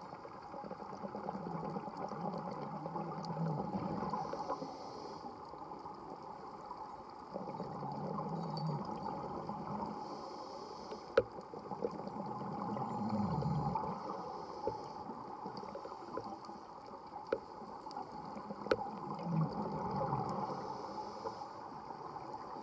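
Underwater sound of a scuba diver breathing through a regulator: a short hiss on each inhale about every five seconds and a bubbling rumble of exhaled air between them, over a steady muffled water noise. There are a few sharp clicks.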